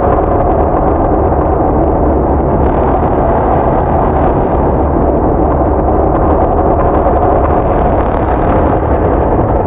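Ambient soundscape composition: a loud, steady, dense low drone of noise with a few faint held tones inside it.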